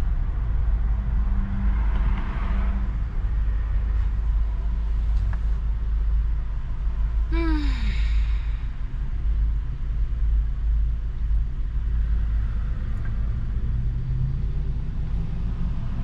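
Steady low rumble of a car's engine and road noise heard inside the cabin. About halfway through, a short voice sound falls in pitch.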